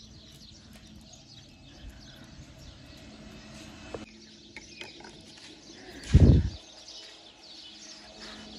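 Small birds chirping faintly over quiet outdoor background noise, with one brief loud low rumble on the microphone a little after six seconds in.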